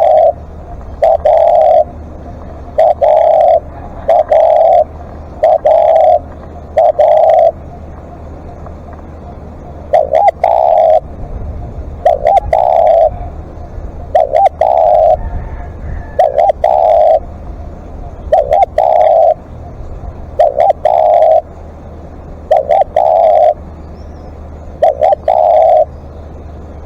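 Spotted dove cooing over and over in short groups of low notes, with a brief pause about eight seconds in.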